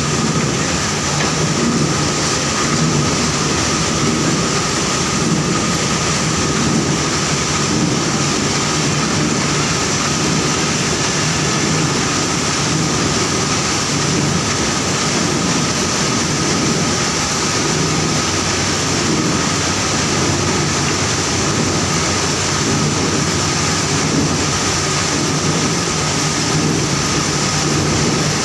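Sugarcane mill machinery running steadily in a sugar factory: a loud, even mechanical din with a constant high whine through it.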